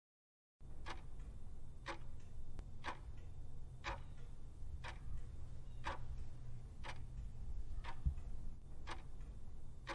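Clock ticking sound effect marking a countdown timer, one tick a second, ten ticks in all, over a low steady hum.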